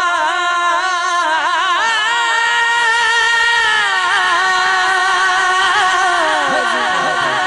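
A male naat reciter sings unaccompanied into a microphone. He holds one long, ornamented note with a wavering pitch, then slides down into shorter notes near the end.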